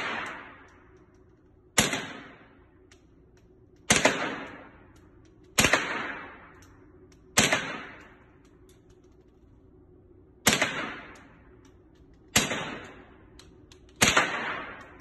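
Assault-style rifle fired in single shots, seven of them about two seconds apart with a longer pause in the middle, each crack ringing out in the reverberant indoor range.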